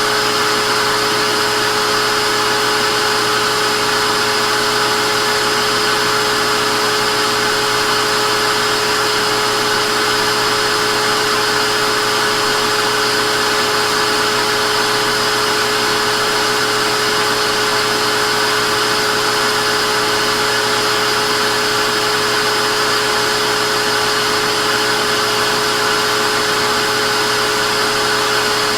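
Vacuum cleaner running continuously at a steady speed: an even rushing of air with a steady motor whine, unchanging throughout.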